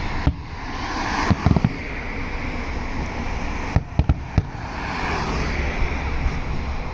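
Aerial fireworks going off: a few sharp bangs in quick succession at about a second and a half in, then another cluster of bangs around four seconds in, over a steady background din.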